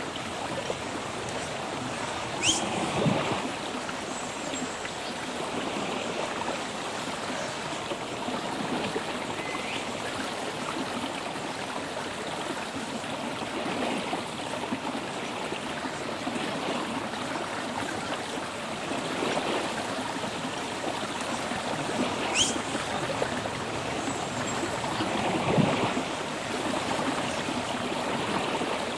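Steady rush of flowing river water, with two brief high rising chirps about twenty seconds apart.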